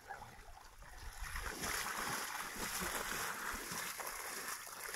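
Water splashing and sloshing around a scuba diver's legs as he wades through shallow water toward the shore, growing louder about a second and a half in.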